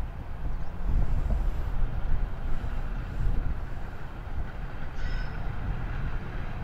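Steam locomotive running slowly toward the listener, tender-first, with a low uneven rumble from its exhaust and motion.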